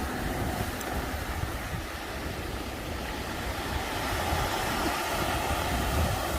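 Wind buffeting the microphone: an uneven low rumble with a steady hiss above it.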